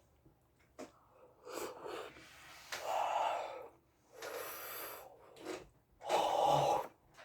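A man breathing out hard through his mouth in a series of about five huffs, a second or less each, while eating food that is too hot.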